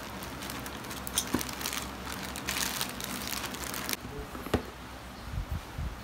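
Plastic courier mailer bag crinkling as it is handled, stopping abruptly about four seconds in. A single sharp tap follows, then faint low bumps as a cardboard box is handled.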